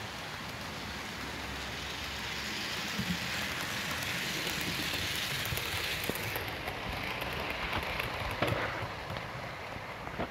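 Heavy rain pouring down, a steady hiss. An OO-gauge model steam locomotive and its coaches run past, so the hiss swells in the middle, with a few light clicks from the wheels on the track.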